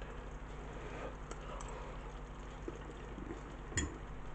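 Quiet kitchen room tone with a steady low hum, and a single light tap of a fork against a plate about four seconds in, as a mouthful of stew is taken.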